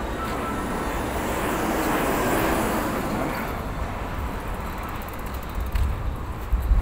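A vehicle passing by: a broad rush of noise that swells to its loudest about two and a half seconds in and then fades away. Low rumbling thumps of wind or handling on the microphone follow near the end.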